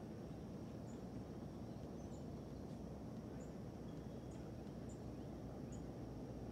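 Outdoor ambience: small birds giving short high chirps about once a second over a steady low rumble, with a faint steady high-pitched whine.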